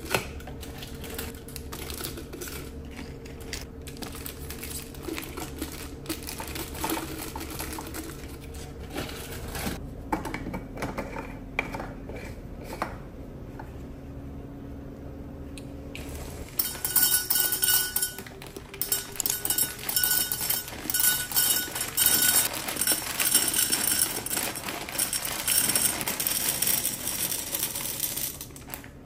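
Wrapped snack packets dropped and pushed into a glass jar, with light clicks and crinkling, and a wooden lid set on. Then, a little past halfway, dry elbow macaroni is poured into a tall glass canister: a dense, loud rattle of pasta hitting glass and pasta.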